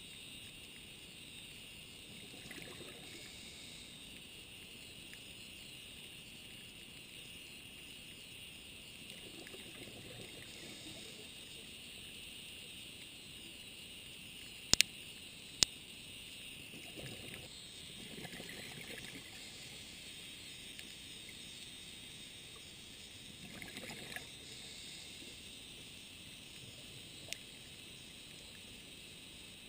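Underwater scuba-dive ambience: a diver's regulator exhaust bubbles in four bubbling bursts, about every seven seconds, over a steady faint crackling hiss. Two sharp loud clicks come about fifteen seconds in.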